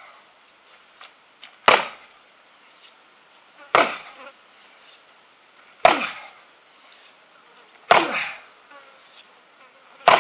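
An axe chopping a tough block of wood: five heavy blows about two seconds apart, each followed by a short tail that falls in pitch.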